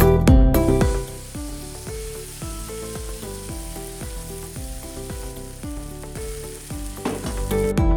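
Egg omelette sizzling as it fries in a pan, a steady hiss, with soft background music under it. The music is louder for the first second and again near the end.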